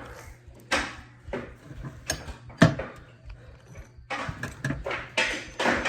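Hand tools and small metal parts being handled: irregular clicks, clanks and scraping rustles, the loudest a sharp knock a little under three seconds in, over a faint steady low hum.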